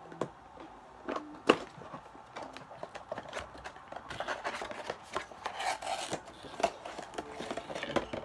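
A perfume box and its insert being handled and opened by hand: a few sharp clicks and taps, the loudest about a second and a half in, then a stretch of rubbing and rustling as the bottle is worked out of the packaging.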